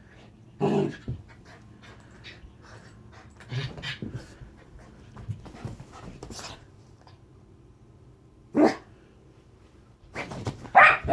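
Rat terrier vocalizing in about five short separate bursts, the last near the end the loudest and highest in pitch.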